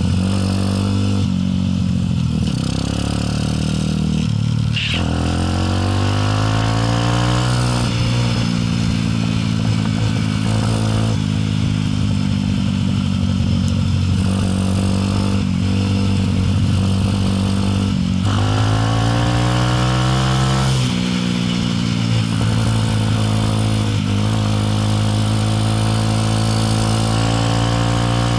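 Motorcycle engine running while riding, its pitch rising as it accelerates and dropping back at each gear change, several times over.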